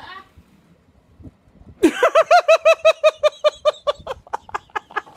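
A woman bursting into high-pitched laughter about two seconds in: a quick run of "ha" pulses that gradually slow and grow fainter.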